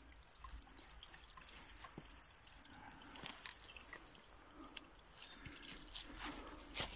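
Small forest stream trickling and dripping faintly over a tiny waterfall between mossy rocks, with scattered small drips.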